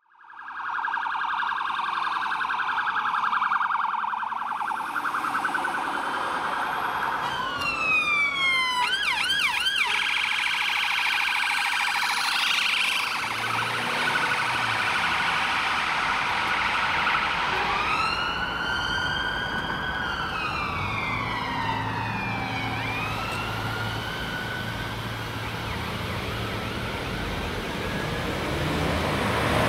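UK police car sirens: a fast warble for the first several seconds, then quick sweeping yelps around eight to ten seconds in, then a slow wail rising and falling from about eighteen seconds. Engine and traffic noise runs under the sirens in the second half.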